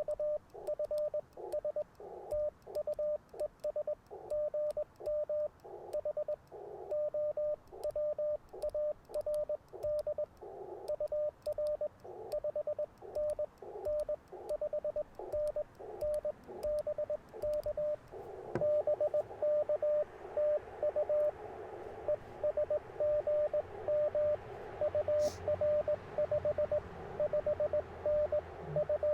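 Morse code (CW) tones at one steady pitch from an Icom IC-705 transceiver, keyed in quick dots and dashes. About two-thirds of the way through there is a click, and receiver hiss comes up under the tones.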